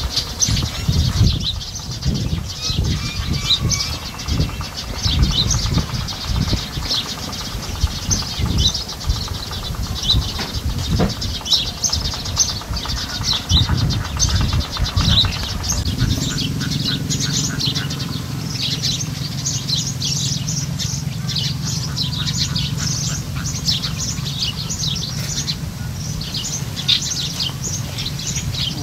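Many small birds chirping over and over, short high calls throughout. Under them an irregular low rumble in the first half gives way about halfway through to a steady low hum.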